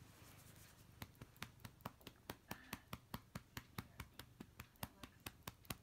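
A hand patting a cat's back in quick, even pats, about five a second, starting about a second in.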